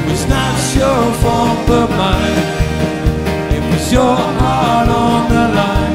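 Live band music: a drum kit keeping a steady beat under bass guitar and guitars, with a lead voice singing a melody over it.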